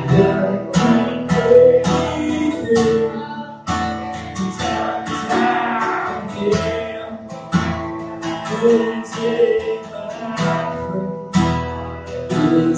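Acoustic guitar played live, chords strummed in a steady succession of strokes.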